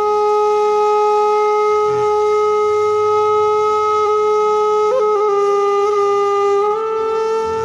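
Background film music: a woodwind holding one long, steady note, wavering briefly about five seconds in and stepping up slightly near the end.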